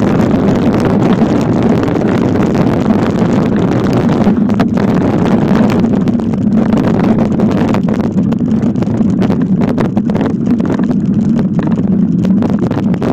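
Muffled, steady rumble of a mountain bike riding over a dirt trail, with frequent small rattles and knocks from the bumps. It is heard through an iPhone sealed in a waterproof case.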